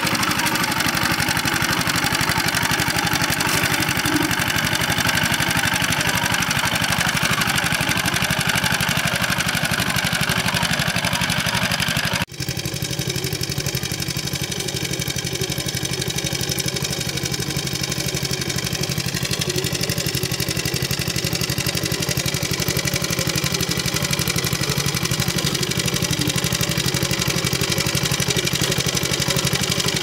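Engine of a farm plowing machine running steadily, with a brief dropout a little under halfway before it carries on.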